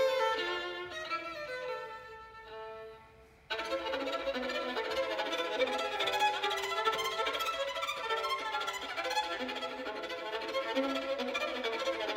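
Strunal Cremona 337W violin played solo with the bow. Quieter held notes die away, then about three and a half seconds in the playing jumps abruptly to a louder, busier passage.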